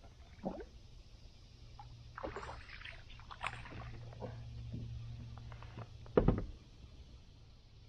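Small splashes and knocks of a hooked smallmouth bass being brought to the side of a plastic fishing kayak, with one loud thump about six seconds in.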